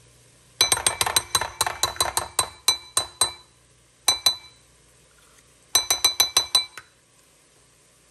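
Metal measuring spoon tapping against a glass mixing bowl to knock tomato paste off: quick runs of ringing clinks, about a dozen in the first three seconds, two more a second later, then another run of about eight.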